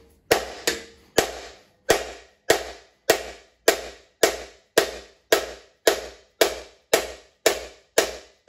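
Steady hammer blows, about two a second, driving a rust-seized piston down and out of its cylinder in a Ford 4.6L four-valve DOHC aluminium engine block. Each blow rings briefly as it dies away. The piston rings have rusted fast in the bore.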